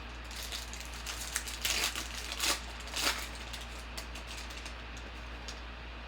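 Crinkling and rustling of a trading-card pack wrapper and cards being handled, in a few short bursts between about one and a half and three seconds in.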